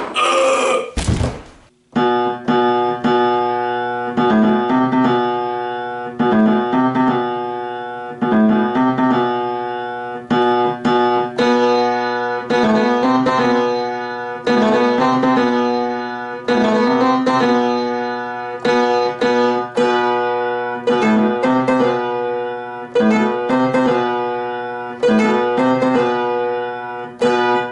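A short loud burst of noise with a thump in the first two seconds, then solo upright piano playing a chordal piece, the chords struck about once a second.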